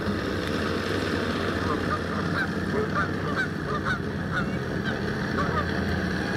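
Geese honking, a run of short calls through the middle, over the steady running of a small boat's outboard motor.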